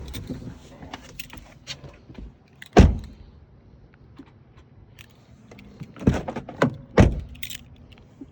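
Car key fobs being handled and jangling, with light clicks and a few sharp knocks: the loudest about three seconds in, then three more close together around six to seven seconds.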